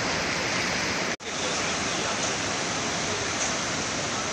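Steady rushing of the flooded Chenab river in spate, fast muddy floodwater running high, with a brief cut-out about a second in.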